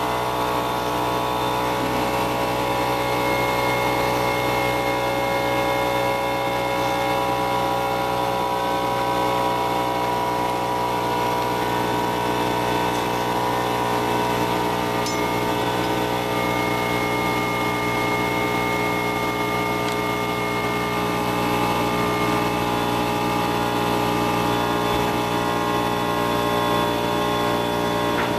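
Go-kart engine running hard on track, recorded onboard, its note holding steady with only slight rises and dips in pitch.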